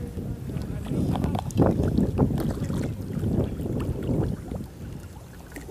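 Wind buffeting the camera microphone in an uneven, gusty low rumble, with a few faint ticks above it.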